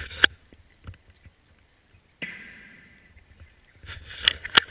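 Scuba regulator breathing underwater: a hiss of air that starts suddenly about two seconds in and fades away, with sharp clicks and knocks near the start and again near the end.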